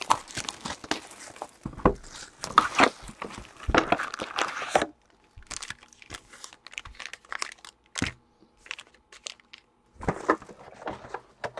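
Plastic shrink-wrap being torn and crinkled off a box of trading cards, stopping about five seconds in. After that come scattered light taps and rustles as the wrapped card packs are set down and stacked on the table.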